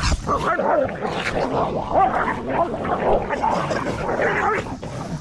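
Dogs growling and barking as they fight, a continuous loud tussle.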